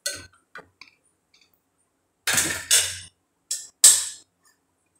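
Spatula knocking and scraping against an aluminium pressure cooker as the stirring ends. A few small clicks come first, then louder clatters about halfway through and again near the end.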